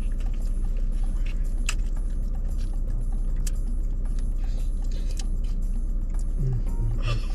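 Steady low rumble of a car's cabin with the engine running, with a few light clicks scattered through it.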